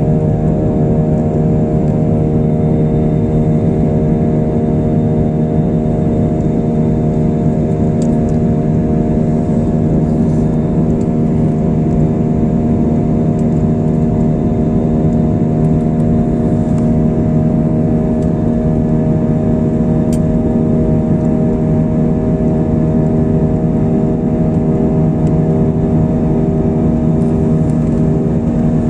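Airbus A320 jet engine heard from inside the cabin in flight: a steady, loud drone with an unchanging set of humming tones over a rush of noise.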